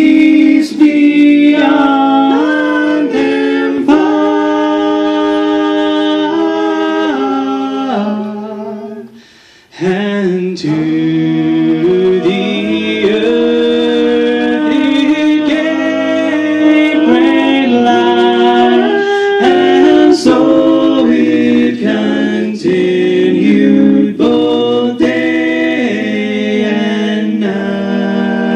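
Male a cappella quartet singing in close harmony into handheld microphones, with long held chords. About eight seconds in the chord fades away, and after a short break the voices come back in about ten seconds in.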